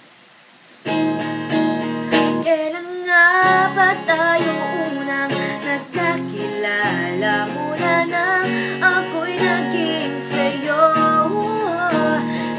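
Woman singing solo to her own strummed silent guitar, a frame-bodied guitar without a hollow soundbox. The strumming starts about a second in, and her voice joins a couple of seconds later.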